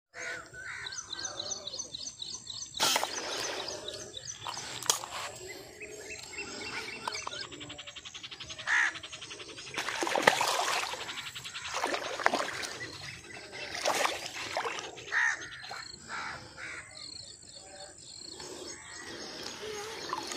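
Small birds chirping, with several sudden splashes and knocks as a fish shot with a slingshot arrow thrashes at the water's surface.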